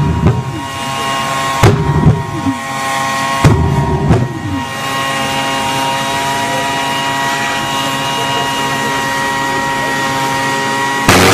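Homemade jet engine on a bicycle running with a steady high whine, broken three times in the first few seconds by loud whooshing surges as flame blasts from its exhaust pipe, each dying away with a falling tone.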